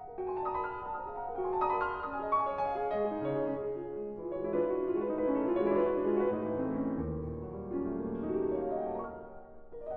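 Instrumental piano music: a flowing line of notes over held chords, with no speech.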